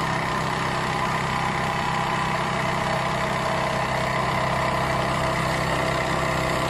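Vibrating blade drive of an oscillating-blade foam cutting machine running steadily at speed, a constant mechanical hum with several steady tones.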